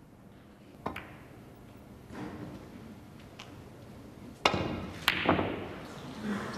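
Snooker balls: a single click about a second in, then a cue tip striking the cue ball near four and a half seconds, followed closely by two sharp clicks of balls colliding on the table.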